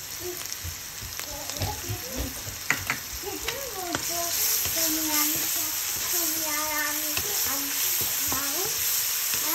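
Small shrimp sizzling as they hit hot oil in a wok of sliced potatoes, onions and green chillies. The frying hiss grows louder about four seconds in as the pan is stirred, with a few sharp spatula taps before that.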